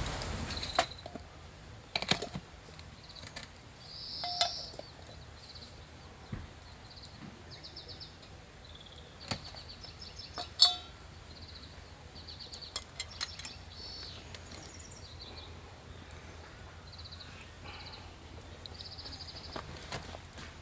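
Small birds calling and singing on and off in short high trills, with a few sharp clicks or knocks, one louder than the rest about ten seconds in.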